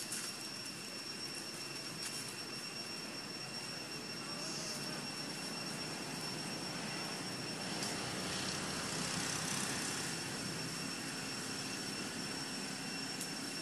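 Steady outdoor background noise: a low, even rushing wash that swells slightly past the middle, with a thin, steady high whine over it.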